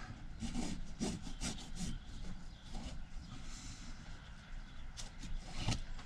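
Retaining straps of a camper van's pop-top roof being unfastened and pulled free overhead: a series of short scratchy rubbing sounds with a few sharp clicks.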